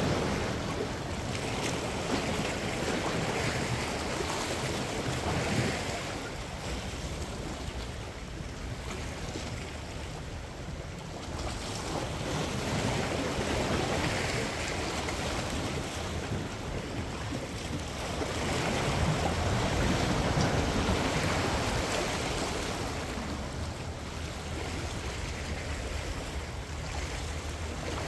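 Small ocean waves washing against the boulders of a rock breakwater: a steady rush of surf that swells and eases every several seconds.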